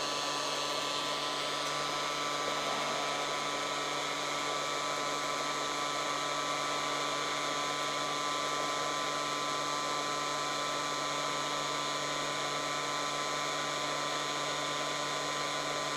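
Heat gun blowing hot air steadily at its maximum setting, with a constant whine from its fan motor, heating an aluminum-backed LED strip from below to melt the solder under a failed LED.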